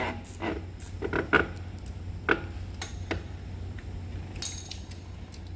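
Loose metal brake parts such as return springs and hardware clinking and knocking as they are handled, a few separate sharp clinks with a brief jingle near the end, over a steady low hum.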